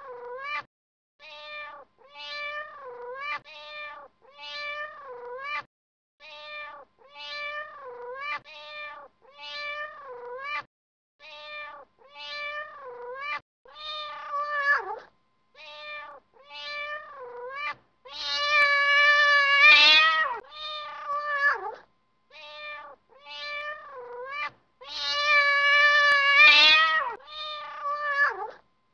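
Cat meowing over and over in short, high calls that come in quick groups, with two longer, louder drawn-out meows in the second half.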